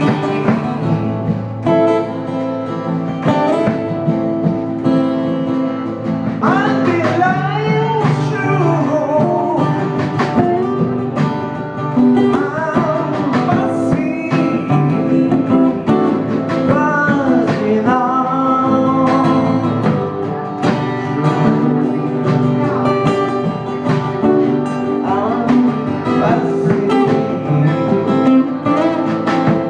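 Live acoustic band: two acoustic guitars strumming chords, with a man singing lead over them for much of the time.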